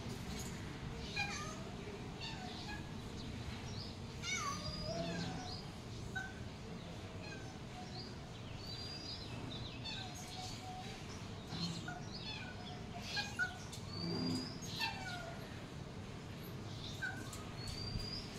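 Kittens mewing now and then, thin high calls, several of which slide down in pitch.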